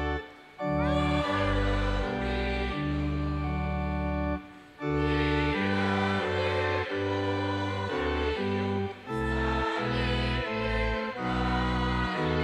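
Congregation singing a hymn with organ accompaniment: held chords over a deep bass line, with short breaks between phrases about half a second and four and a half seconds in.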